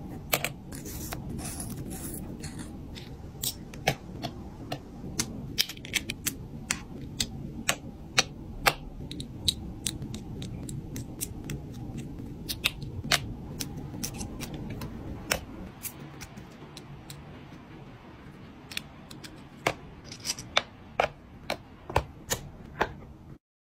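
Small, sharp, irregular clicks and taps of tweezers, fingernails and tiny wooden and plastic pieces as miniature furniture and goods are set into a dollhouse room, about one or two a second over low steady handling noise.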